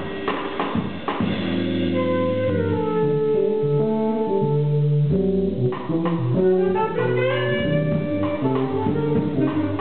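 Live jazz: a saxophone plays held notes and a quick rising run about seven seconds in, over a rhythm section with bass and drums.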